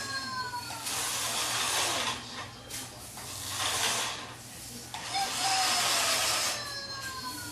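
Small electric motor of a remote-control toy scooter whirring in bursts of a second or two as it drives, with a whine that falls in pitch near the start and again about five seconds in.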